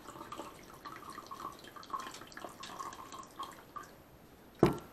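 The last of the tea dribbling and dripping in irregular drops from a nearly empty Stanley Classic vacuum flask into a metal cup. A single sharp knock near the end.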